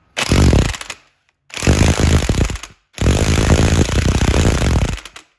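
Impact wrench hammering on the screw of a ball joint press in three bursts, the last and longest about two seconds, to force a seized wrist pin out of the piston.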